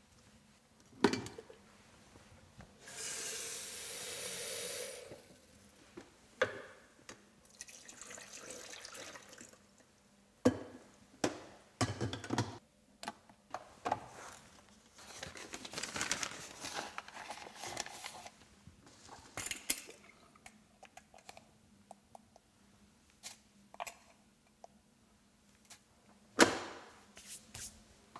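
Kitchen tap water running in short spells, among sharp knocks and clicks as a drip coffee maker's carafe, lid and filter holder are handled.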